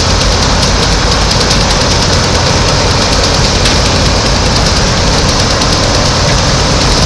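Heavy engine-driven machinery aboard a dredger running steadily: a loud, even drone with a low hum that does not change.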